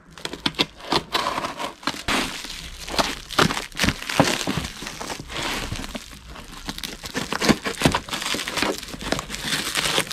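Packaging crinkling and rustling as a parcel is unwrapped by hand, with many small sharp clicks and knocks from handling.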